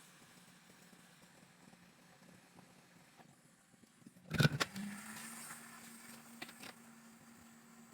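Faint background noise, then a short, loud clatter about four seconds in, after which a steady low hum sets in.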